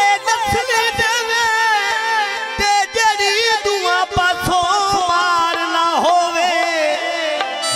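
Male folk singer's amplified vocal, a long wavering ornamented line sung without clear words, with scattered drum strokes underneath.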